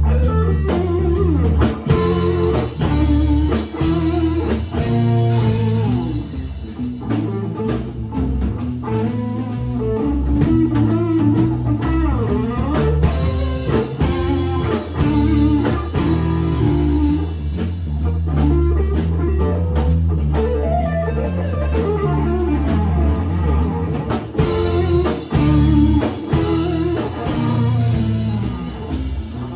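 An instrumental rock band playing: two electric guitars over a drum kit, with steady drum hits driving the beat.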